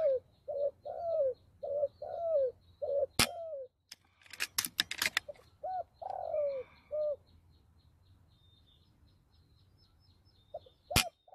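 Spotted doves cooing: a run of short, falling coos about twice a second, then a few more around six to seven seconds in, over a faint, even high ticking. A sharp crack comes about three seconds in, followed by a rapid cluster of clicks, and another sharp crack comes near the end.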